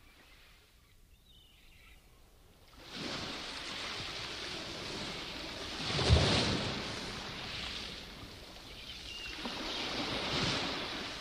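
Ocean surf breaking over rocks: a rushing wash of water that comes in about three seconds in and swells as waves crash, loudest about six seconds in and again near the end.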